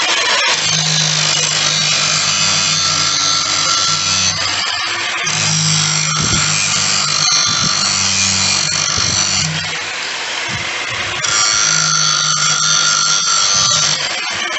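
Electric angle grinder working on the steel of a truck's broken gear shift lever, in several passes of a few seconds each with brief breaks between them.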